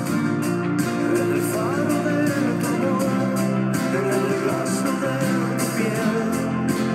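Acoustic guitar with a capo strummed in a steady rhythm, changing chords from an A# barre shape to C and then F. From about a second and a half in, a voice sings a wordless melody over the strumming.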